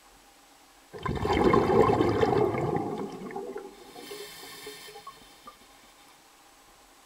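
A sudden rush of water starts about a second in. It is loudest for about two seconds, then fades away over the next few seconds, with a brief hiss near the middle.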